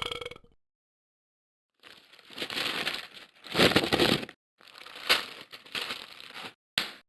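The tail of a loud burp dies away. After a brief silence comes a run of irregular crunching and crackling as someone chews crunchy food close to the microphone, ending in two short crunches.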